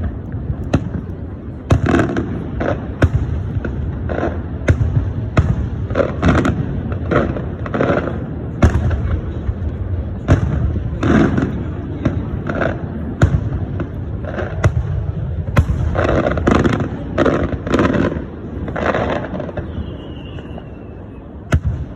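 Fireworks display: sharp bangs of bursting shells, one to two a second at irregular intervals, over a continuous low rumble. The bangs thin out near the end.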